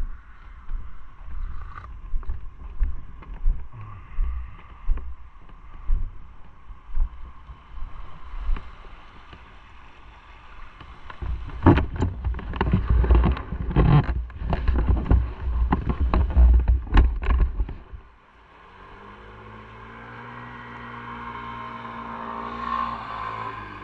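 Wind buffeting the microphone on a moving motorcycle, gusting harder in the second half. About eighteen seconds in the wind cuts out, leaving the motorcycle engine running with a steady hum.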